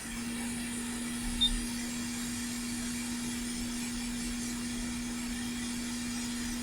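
Hot air rework station blowing heated air onto the circuit board: a steady hiss of airflow over a constant fan hum.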